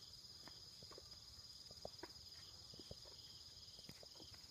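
Faint, steady high-pitched drone of insects, with a few soft scattered ticks.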